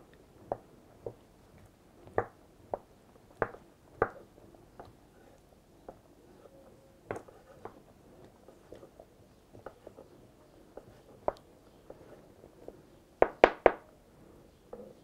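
A kitchen knife knocking on a wooden cutting board, chopping boiled egg with irregular single taps a second or so apart, then a quick run of three louder knocks near the end.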